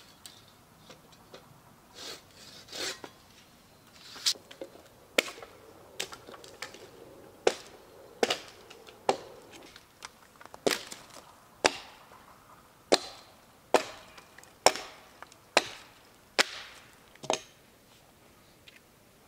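Axe chopping into a felled log lying on the ground: a steady series of sharp chops about one a second, with a couple of softer knocks first, stopping shortly before the end.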